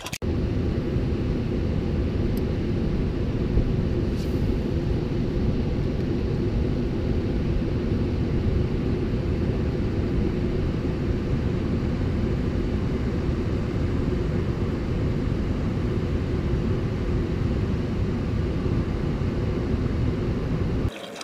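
Steady low roar of rushing river rapids.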